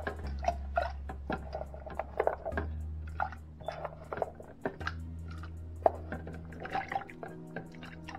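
Chopped fresh coconut being dropped into water in a blender jar: many small irregular plops and splashes. Background music with a bass line runs underneath.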